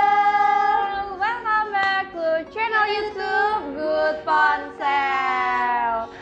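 A high voice singing a melody with long held notes and slides between them.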